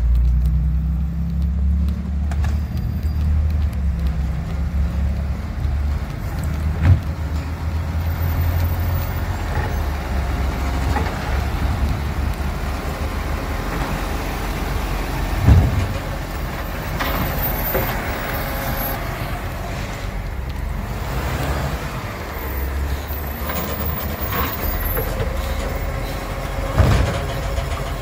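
Side-loader recycling garbage truck's diesel engine running as its arm lifts and tips wheelie bins into the hopper. Three sharp knocks stand out: about seven seconds in, near the middle and near the end.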